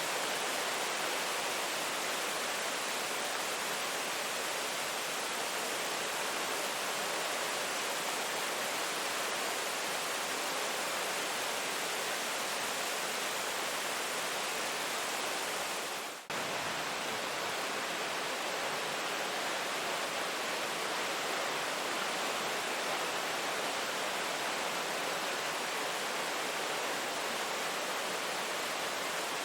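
Steady rain making an even, unbroken hiss. About halfway through it briefly fades down and cuts straight back in.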